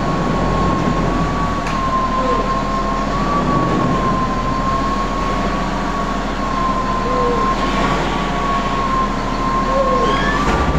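A crane running while it hoists a large steel duct, a steady high whine over a low engine hum, with a few short squeaks.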